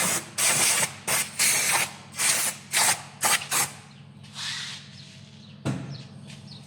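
Compressed-air blow gun fired in a quick series of short hissing blasts, about eight in under four seconds, blowing dust off the cleaned brake caliper. It is followed by a fainter hiss and a single knock.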